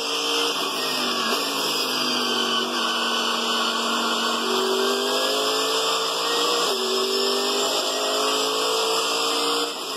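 Racing car engine running at high revs, climbing slowly in pitch. The pitch drops suddenly about a second in and again about two-thirds through, as at gear changes.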